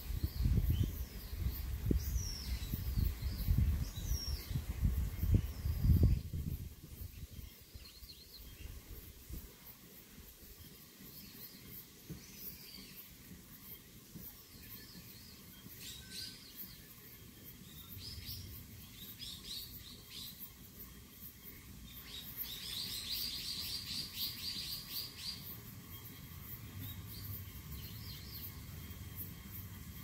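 Small birds chirping in short high calls, with a rapid run of chirps about two-thirds of the way through. A loud low rumble fills the first six seconds, then stops.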